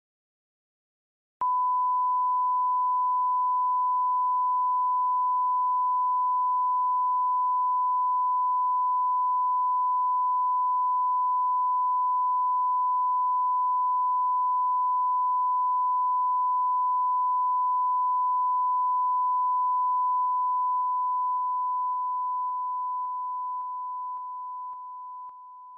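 A 1 kHz reference test tone that accompanies colour bars: one pure, steady beep that starts about a second and a half in after silence, holds level, then fades away in steps over the last several seconds.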